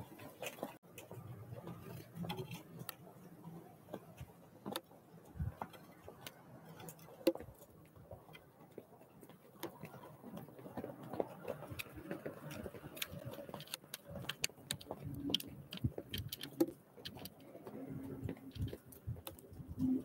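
Scattered faint taps and clicks of birds pecking seed and hopping on a wooden bird-feeder tray, coming irregularly and thickest in the second half.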